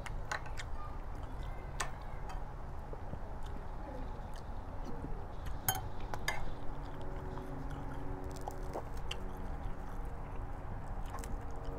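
A spoon clinks sharply against a ceramic bowl a few times, two of the clinks close together about six seconds in, along with chewing. A steady low hum runs underneath.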